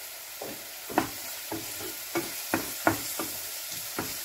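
Diced onions sizzling gently in lard in a frying pan as they sweat down, with a wooden spoon stirring them and knocking against the pan about a dozen times at an uneven pace, loudest about a second in.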